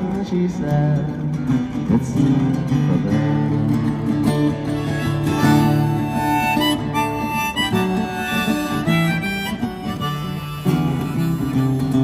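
Acoustic guitar strummed under a harmonica played from a neck rack, carrying a held, sustained melody line in an instrumental break.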